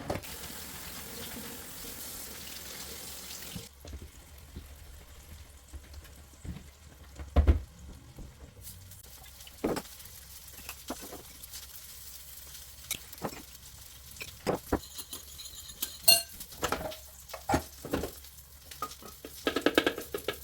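Cooking in a pan: a steady sizzle for the first few seconds that stops abruptly, then scattered clinks and knocks of a utensil stirring against the cookware, with one heavier knock about seven seconds in.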